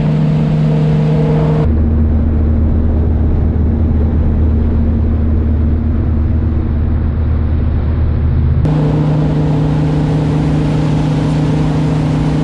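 Malibu 21 VLX wakesurf boat's inboard engine running steadily at surf speed, with water rushing in the wake. The hum drops to a deeper tone about two seconds in and switches back about nine seconds in.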